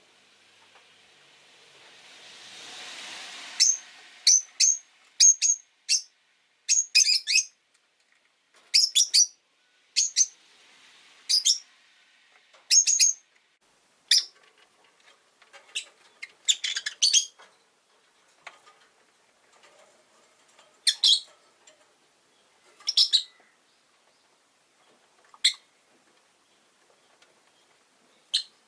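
Rosy-faced lovebirds giving short, sharp, high-pitched chirps, in quick runs at first and then more spaced out. A rising rush of noise builds over the first few seconds and stops abruptly as the chirping starts.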